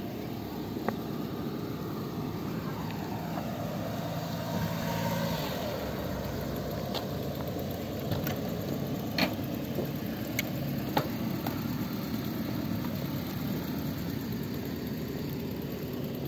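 A motor vehicle's engine running steadily, with a few sharp clicks scattered through.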